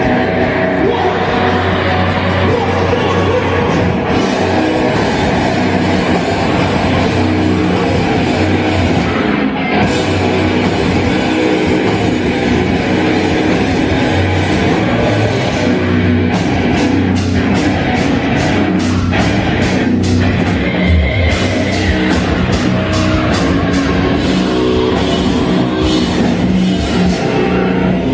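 Nu metal band playing a song with drums and electric guitars. In the second half the band plays runs of sharp, evenly spaced hits.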